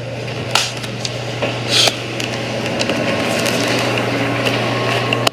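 Rustling and scraping handling noise, with two sharp knocks in the first two seconds, over a steady low hum.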